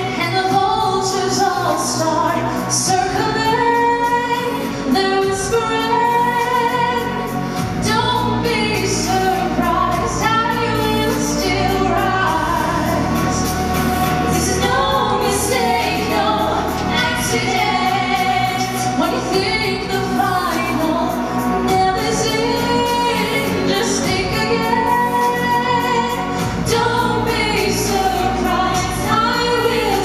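Two women singing a duet into handheld microphones over instrumental accompaniment, amplified through a sound system.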